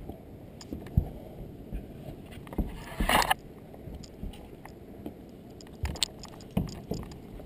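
Hands and shoes on an artificial climbing wall: scattered knocks and taps on the holds and textured panels, with a louder, longer scrape about three seconds in. Under them runs a steady low rumble.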